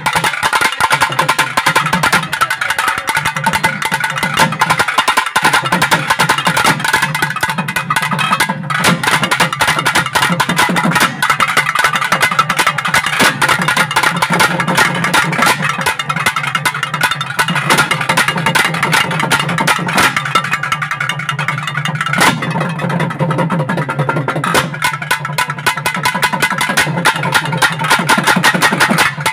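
Naiyandi melam folk ensemble playing: fast, dense thavil drumming under a sustained, wavering reed melody and a steady low drone.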